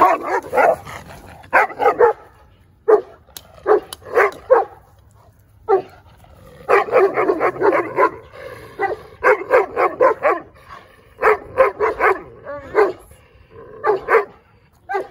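Livestock guardian dog barking repeatedly at another dog, in short runs of barks with brief pauses between them, the runs coming closer together in the second half.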